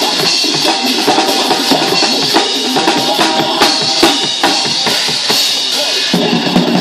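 Acoustic drum kit played live: bass drum, snare and cymbals in a steady driving beat.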